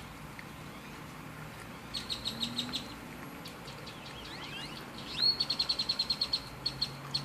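A small bird chirping: a quick run of clicky chirps about two seconds in, then a fast trill of high repeated notes, about ten a second, starting with a rising note a little past the middle. A faint steady low hum runs underneath.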